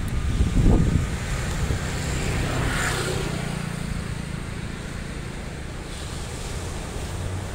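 Wind buffeting the microphone in low rumbling gusts during the first second. After that comes a steady low rumble, with a broad hiss that swells and fades about three seconds in.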